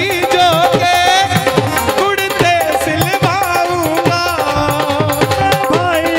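Live Indian devotional bhajan music: an instrumental passage with hand-drum percussion under a wavering melodic lead, without sung words.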